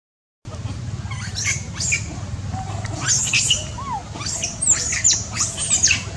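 A quick run of short, high-pitched animal squeals and chirps, each falling sharply in pitch, coming thicker in the second half, over a steady low rumble. The sound starts after a half-second gap.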